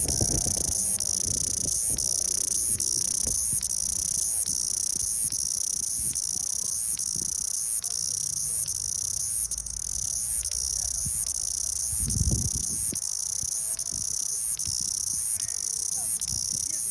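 Cicadas singing: a steady high-pitched buzz that pulses in a regular rhythm. Low rumbling bursts come near the start and again about twelve seconds in.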